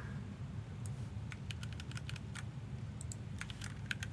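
Computer keyboard typing: a run of quick key clicks about a second in and another near the end, over a low steady hum.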